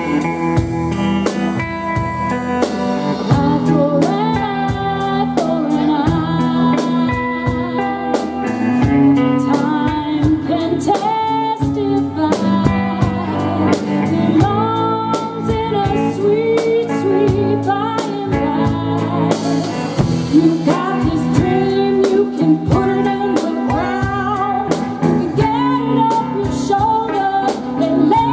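Live blues band playing: electric guitar and drum kit keeping a steady beat, with a woman singing into a microphone over them.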